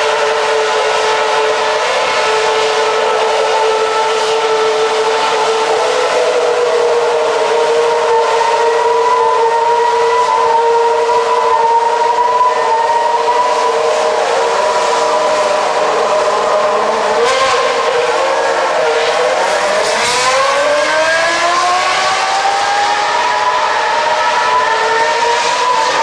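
Several Ferrari Formula 1 car engines running at high revs, their high-pitched notes overlapping. One note climbs slowly as a car accelerates; about twenty seconds in, the pitch drops sharply and then rises again.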